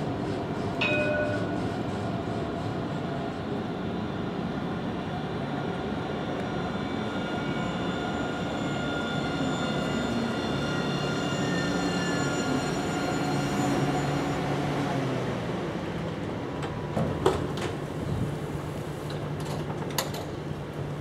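Alstom Citadis electric tram pulling into a stop and braking to a halt, its traction motors whining on several steady pitches that slide down as it slows and die away about two-thirds of the way through. Two sharp clicks follow once it has stopped.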